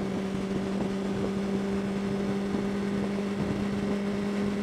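Honda CBR600RR's inline-four engine running at steady cruising revs, a constant drone that neither rises nor falls, under wind and road noise.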